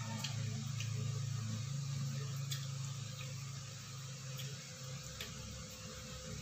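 Washing machine running: a steady low motor hum that gives way to a lower rumble about five seconds in, with a few faint clicks on top.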